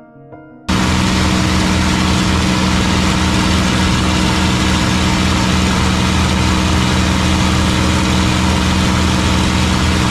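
After a moment of soft music, a sudden cut to the steady, loud drone of the P-51 Mustang's Merlin V-12 engine and propeller, heard inside the cockpit in flight with heavy wind rush over the canopy.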